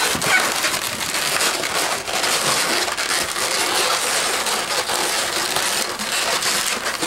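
Latex 260 twisting balloons squeaking and rubbing against each other and the hands as bubbles are twisted and locked into a pinch twist: a continuous, dense scratchy rubbing.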